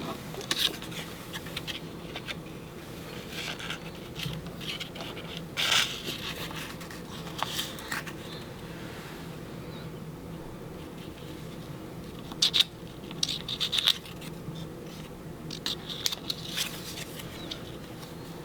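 Cardstock circles being handled and slid across a paper scrapbook layout: scattered short rustles and scrapes, a few sharper ones about six and thirteen seconds in.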